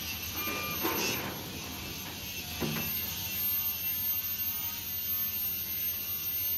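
Diesel engine of a CAT 320 hydraulic excavator running steadily with its hydraulics working, while a bucket of sand is dumped into a steel dump-truck bed: a rushing rumble about a second in, and a shorter thump shortly before the third second.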